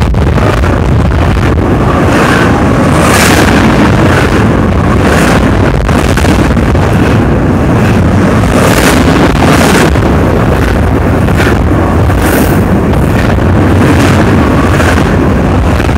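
Double-stack intermodal container train rolling past at speed at close range: loud, steady wheel-on-rail noise, with the wake of air buffeting the microphone.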